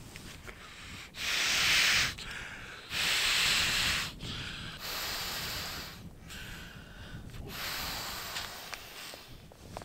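A person blowing breath after breath into the valve of an inflatable sleeping pad: about five long hissing exhalations, each about a second long, with short pauses between for inhaling, the first two loudest.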